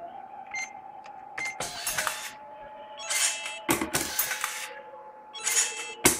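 CRT-571 card dispenser running a stress test, its feed mechanism whirring in repeated bursts about every two seconds as it encodes, verifies and pushes out plastic cards one after another. Each burst carries a sharp click. The loudest clicks come about a third of the way in and again near the end.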